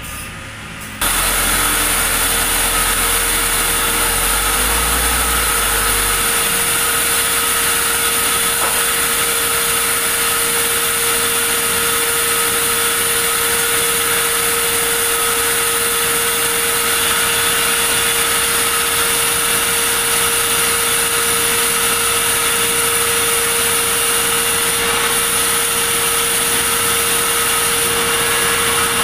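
Sawmill saw cutting wood, starting abruptly about a second in, then a loud, steady whine over running machine noise. A low rumble underneath fades out after a few seconds.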